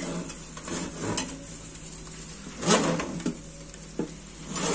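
Roast stuffed chicken sizzling in its pan in a hot oven as the oven rack is drawn out with an oven mitt, with a few short metal scrapes and clunks of the rack and pan, the loudest nearly three seconds in.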